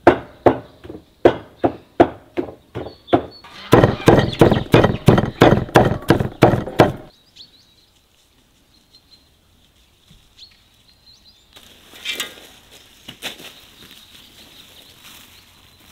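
A run of sharp knocks or chops, about three a second, turning faster and louder before stopping abruptly about seven seconds in. Later, dry leaves rustle as they are gathered into a sack.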